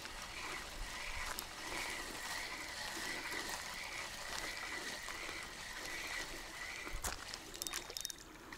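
Spinning reel being cranked steadily to bring in a hooked roach: a whirring with a regular pulse about twice a second. The cranking stops about seven seconds in, followed by a click and light splashing as the fish reaches the surface.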